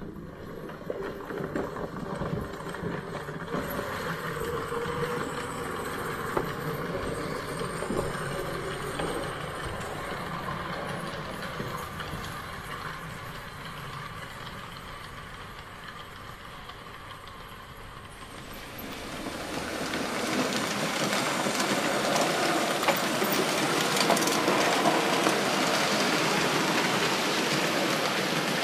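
Märklin HO scale model freight train running along the layout's track, its wagons rolling steadily on the rails. About two-thirds of the way through it gets louder as a train of covered wagons passes close by.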